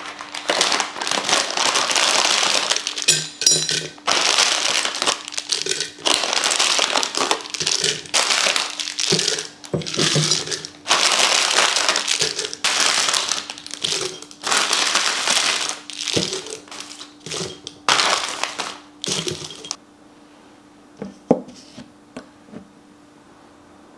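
Plastic-wrapped candies being poured and handled, their wrappers crinkling in repeated bursts, as they are packed into a candy pot. The crinkling stops about twenty seconds in, and a few soft clicks follow.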